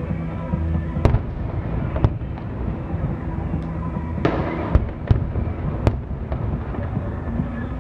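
Fireworks display: sharp bangs of shells bursting about once a second, irregularly, with one burst about four seconds in trailing off into a brief crackle.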